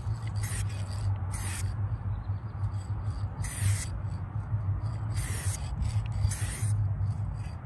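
Aerosol spray paint can hissing in about five short bursts, each well under a second, applying light strokes of paint. A steady low rumble of wind on the microphone runs underneath.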